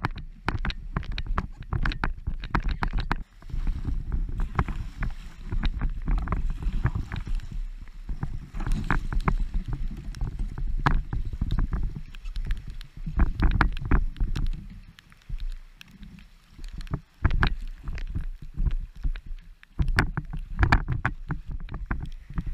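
Sea kayak at the water's edge: small waves washing over stones, with scattered knocks and splashes from the hull and paddle, over a rumble of wind on the microphone.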